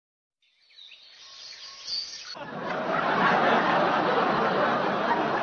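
Faint bird chirps outdoors, then about two and a half seconds in a much louder steady wash of outdoor background noise with voices chattering and chuckling.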